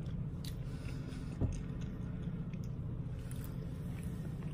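Steady low background hum, with a few faint clicks and one soft thump about a second and a half in.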